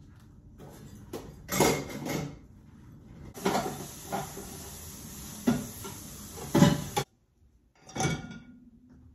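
Ceramic dishes clinking as they are rinsed at a kitchen sink, with tap water running for about four seconds in the middle and cutting off suddenly. Near the end a plate clinks into a dishwasher rack.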